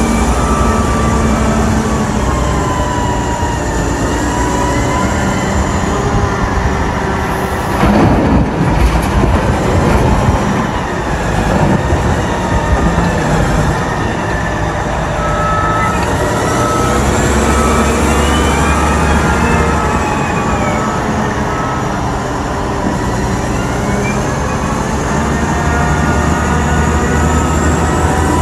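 Caterpillar 990 wheel loader's diesel engine working under load while it lifts and tips a bucket of material into a truck trailer. A rush of material pours into the trailer about eight seconds in, and a whine rises and falls with engine speed.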